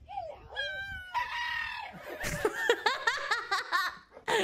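A dog vocalizing in long, howl-like calls that slide up and down in pitch, one held for about a second, followed by a quicker run of short calls.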